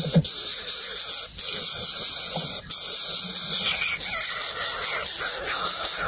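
Greater coucal nestlings hissing steadily with beaks open, begging, the hiss breaking off briefly twice. A couple of short low grunts come right at the start.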